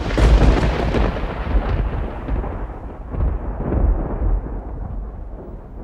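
A deep, thunder-like rumbling sound effect for an opening title. It starts suddenly, is loudest in the first second, swells again twice, and slowly dies away as its high end fades.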